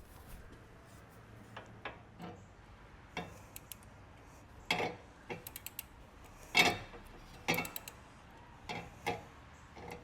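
Metal tools clicking and knocking against the mower engine in short irregular strikes as the spark plugs are loosened and removed.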